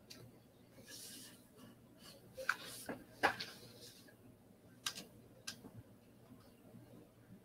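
A few faint, scattered clicks and knocks, the loudest in the middle, with a soft rustle about a second in.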